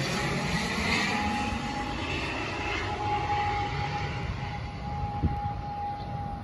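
Twin-engine turboprop airliner's engines and propellers droning as it flies away after passing low overhead, the noise slowly fading. A steady high tone sets in about a second in.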